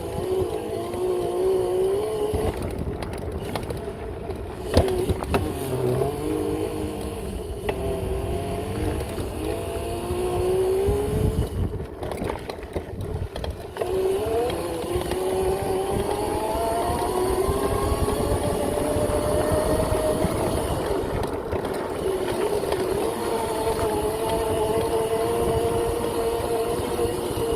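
Whine of a Razor MX650 pit bike's upgraded 5000 W, 72 V electric motor under way, its pitch rising and falling with speed and climbing steadily as it accelerates about halfway through, over a low rumble. A sharp knock comes about five seconds in.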